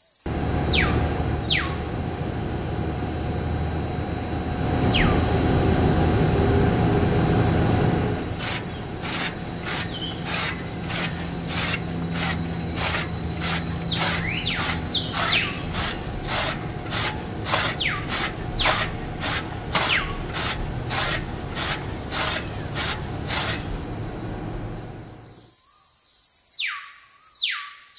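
Small DC toy motor running and turning a belt-driven miniature chaff-cutter wheel. From about a third of the way in, the blade chops leaves with sharp clicks about twice a second, and the motor stops a few seconds before the end. Birds chirp in the background.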